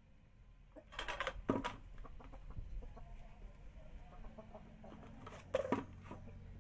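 Chickens clucking in two short bursts, about a second in and again near the end.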